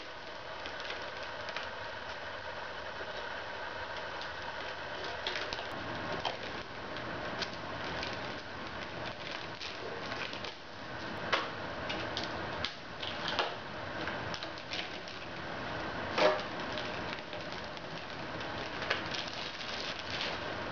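Steady background hum with scattered light knocks and taps from handling the riveted sheet-aluminium body of a resonator ukulele; one louder knock with a brief ring about sixteen seconds in.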